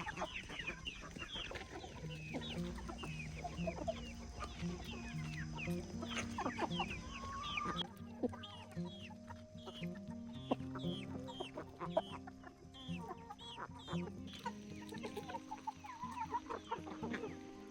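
Farm chickens clucking, with many short, high, falling peeps. Soft background music runs underneath.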